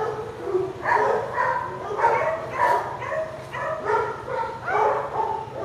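Siberian huskies vocalizing: a quick run of about a dozen short, pitched calls starting about a second in.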